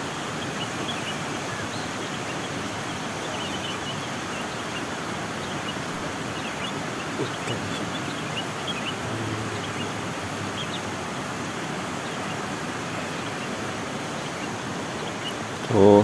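Steady rush of flowing stream water, with faint, scattered short bird chirps over it.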